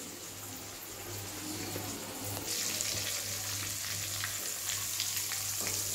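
Rava-coated pomfret frying in hot oil in a kadai, a steady sizzle that grows clearly louder about two and a half seconds in as the fish goes into the oil. Steel tongs click and scrape lightly in the pan.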